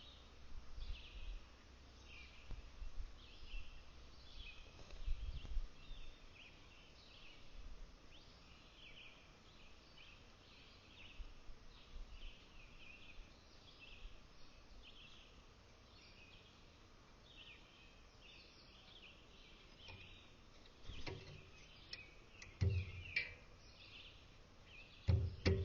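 Small wild birds chirping, short high calls repeating about once or twice a second. Near the end come a few loud, dull thumps.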